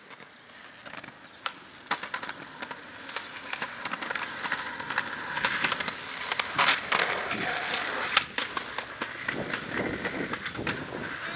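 Skateboard wheels rolling on pavement, with sharp clacks of the board popping and landing; the loudest snaps come about seven and eight seconds in.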